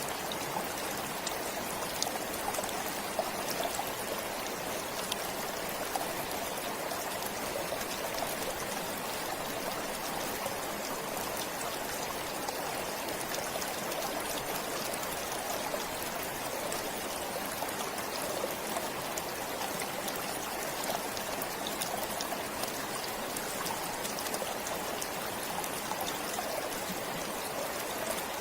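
Forest stream flowing steadily, with fine trickling and splashing over the water's even rush.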